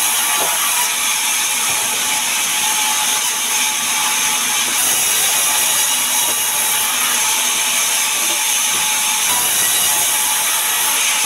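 Sawmill band saw ripping a sengon log lengthwise: a loud, steady, high hiss of the blade cutting through the wood, with the saw's motor and wheels running underneath.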